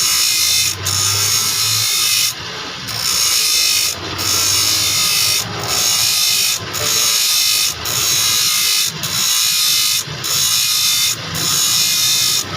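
Harsh rasping strokes of a hand tool working a saw blade, repeated evenly about once a second with a short break between each stroke.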